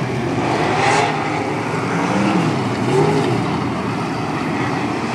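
USAC sprint cars' V8 engines running on the dirt oval, a dense, steady sound with the engine pitch rising and falling as the cars go through the turns.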